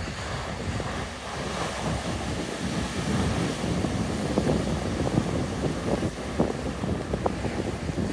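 Heavy ocean surf breaking and washing up a rocky beach in a steady rush, with wind buffeting the microphone. It grows a little louder about three seconds in.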